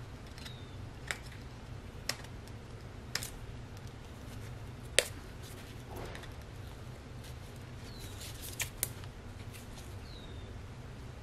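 Sharp small clicks and taps of tools and small parts being handled on a workbench during an O-ring and seal job on a hydraulic valve block, about six in all, the loudest about five seconds in and two quick ones close together near the nine-second mark. A steady low hum runs underneath, and a few short high falling chirps come and go.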